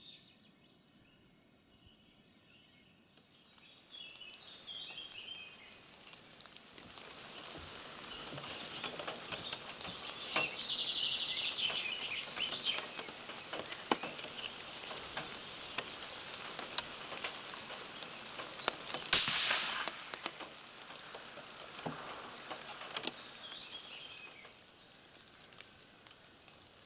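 Outdoor field ambience with birds chirping, scattered light clicks and rustles, and a single loud, sharp crack about 19 seconds in.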